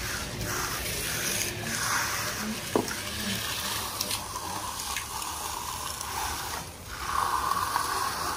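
Work sounds on fresh concrete: hand tools scraping and rubbing, with a few faint clicks. The sound gets louder about seven seconds in.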